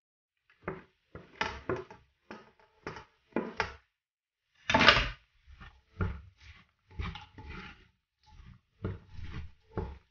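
Wooden spoon stirring diced vegetables in a stainless steel pot, with irregular knocks and scrapes against the pot; the loudest, longest scrape comes about five seconds in.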